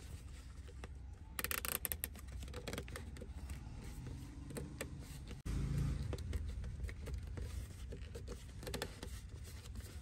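Nylon cable tie being ratcheted tight around the base of a handbrake lever boot: a quick run of zipping clicks about a second and a half in, and a shorter run near the end, with handling rustle and a dull thump around the middle.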